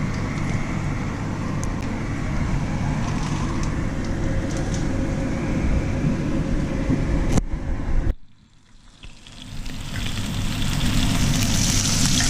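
Crumbed flathead pieces sizzling in hot oil in a frying pan, a steady frying hiss over a low hum. The sound cuts out abruptly about eight seconds in and fades back up over the next two seconds.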